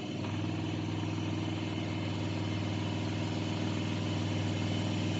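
Washing machine in a fast spin cycle: a steady motor hum that gets a little louder just after the start, with the machine shaking the room.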